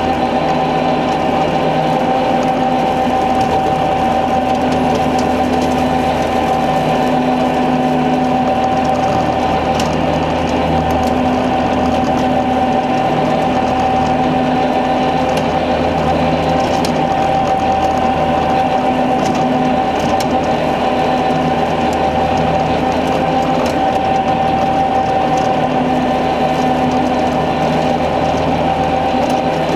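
Sidetrax SM150 three-blade rotary cutter driven off the PTO of a New Holland Boomer 50 tractor, mowing grass. It makes a steady high mechanical whine over the tractor's engine, with a lower hum that swells and fades every few seconds.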